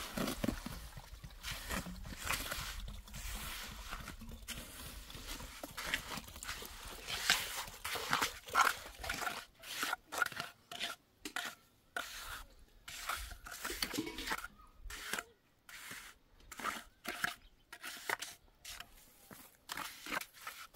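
Irregular scraping and crunching strokes of a tool working wet cement, coming in quick bunches and spacing out toward the end.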